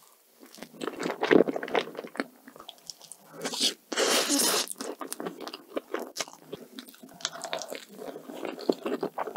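Close-miked eating sounds from slices of cake and cheesecake taken off a spoon: wet chewing, lip smacks and crackly little bites, with a longer, louder crunchy stretch about three and a half seconds in.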